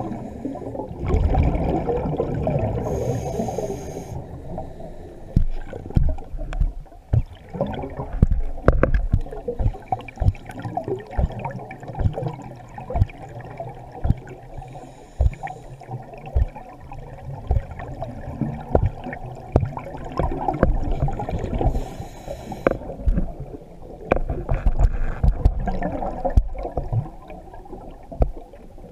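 Scuba diver's exhaled air bubbling and gurgling underwater, coming in several surges with many small pops and knocks. The sound is dull and low, as heard through an underwater camera housing.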